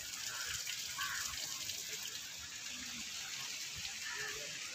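Water from a small bell-shaped fountain jet falling into a stone basin: a steady splashing rush.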